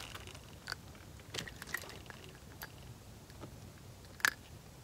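A few faint, scattered clicks and taps, with one sharper click near the end, from handling fishing tackle and freshly caught white perch in a boat.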